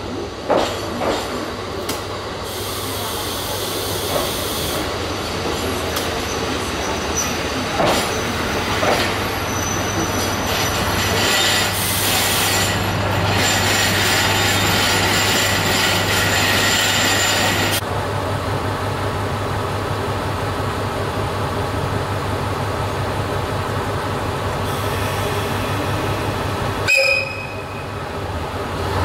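KiHa 150 diesel railcar arriving at a station, with clicks as its wheels cross rail joints and stretches of high squealing as it slows. Under it the diesel engine keeps up a steady low hum. Near the end there is a sudden loud sound with a short high tone.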